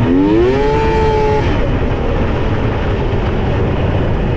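Yamaha SX700R snowmobile's three-cylinder two-stroke engine revving up under throttle: its pitch climbs quickly, holds for a moment, then fades about a second and a half in. A heavy rush of wind noise runs underneath.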